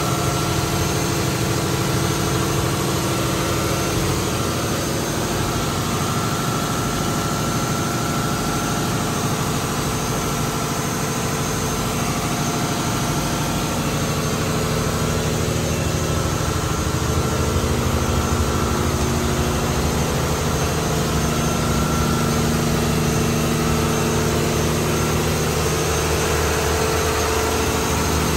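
Marine diesel engine and engine-room machinery running steadily in a ship's enclosed engine room: a loud, even drone with a constant hum of several steady tones.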